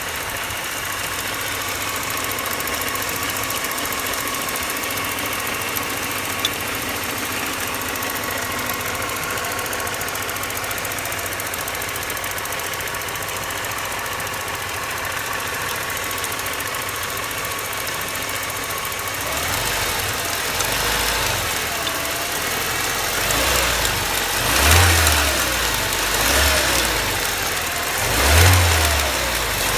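BMW 318ti's M42 1.8-litre four-cylinder engine idling with a ticking sound, then revved in several short throttle blips near the end.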